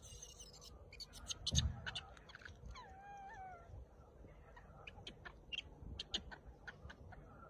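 A rhesus macaque gives one short coo about three seconds in, sliding down in pitch and then holding, among scattered clicks and rustles from the huddled troop. A low thump comes a little before the call.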